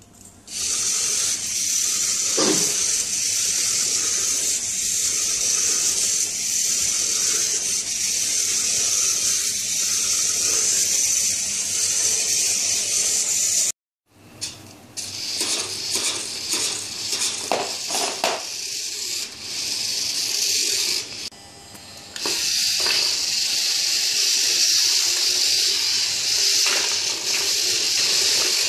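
Small brick-built robots' electric gear motors running with a steady high whir, starting about half a second in just after one robot is switched on by hand. A few clicks of plastic parts being handled come partway through.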